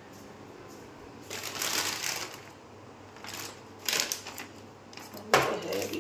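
Crinkling and rustling of things handled at a kitchen counter, in several irregular bursts. The longest comes soon after the start, and a louder one near the end opens with a sharp knock.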